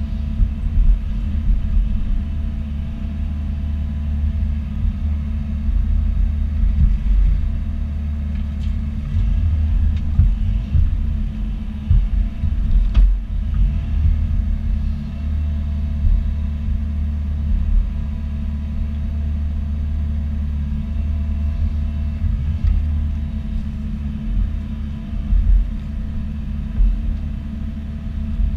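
Bobcat E42 mini excavator's diesel engine running under steady load with a low rumble while it works, with a faint steady whine above it and one sharp knock about halfway through.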